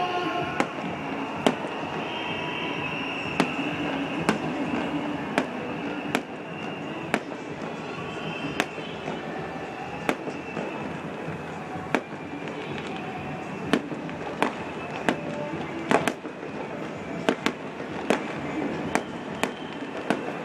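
A fireworks display: sharp bangs about once a second over a steady dense background din.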